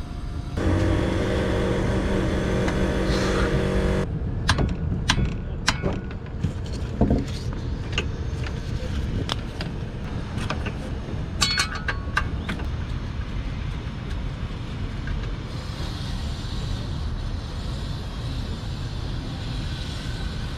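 Wrenching work in a car's engine bay: a small motor hums steadily for about three seconds, then come scattered clicks and a short run of ringing metallic clinks as tools, bolts and sockets are handled, over a steady low background rumble.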